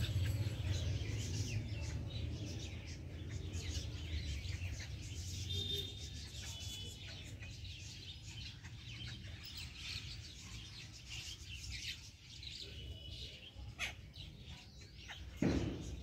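Small birds chirping and tweeting in short calls, with a few brief whistled notes, over a low steady rumble that fades; a single thump near the end.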